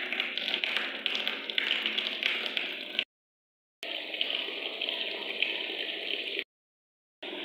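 Tap water pouring into a plastic tub and splashing on the water already in it as the tub fills. The sound breaks off twice, for under a second each time.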